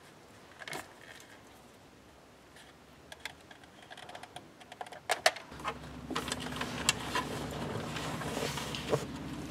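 Scattered small clicks, taps and rattles of wires, plastic connectors and a pair of wire strippers being handled at a car's dashboard wiring, getting busier in the second half. A faint steady hum comes in about halfway.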